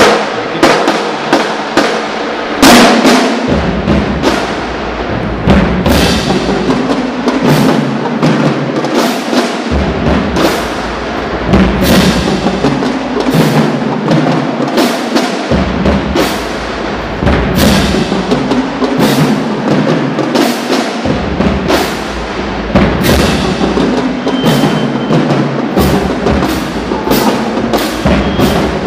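College marching band drumline playing a cadence: a dense, driving pattern of snare and bass drum strokes. The deep bass drum parts drop out and come back in sections, about every few seconds.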